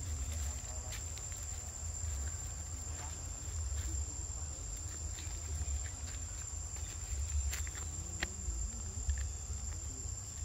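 A steady, high-pitched insect drone, one unbroken tone, with scattered faint clicks and rustles over it.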